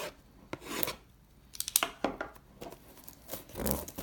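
Trading card box packaging being torn open: a run of short tearing and crinkling rustles, some sharp, others softer.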